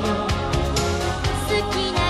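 Japanese pop song playing as the end-credits theme, with a steady drum beat under a busy melody.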